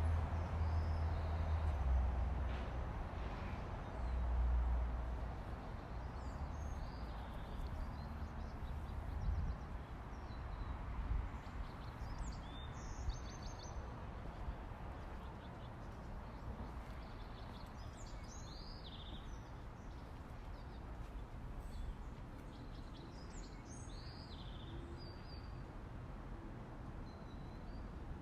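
Daytime city ambience: a steady low city rumble, heavier in the first few seconds, with small birds chirping on and off above it.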